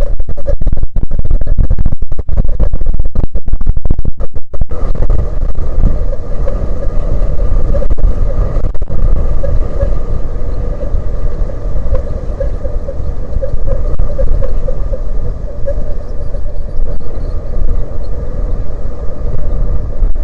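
Strong wind buffeting the microphone: a loud, choppy low rumble, steadier after about five seconds, with a faint steady hum under it.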